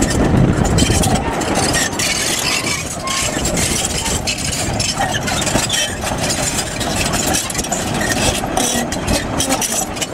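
Crawler bulldozer's diesel engine running while its steel tracks clank and grind over loose rubble stone, with many short crunching knocks.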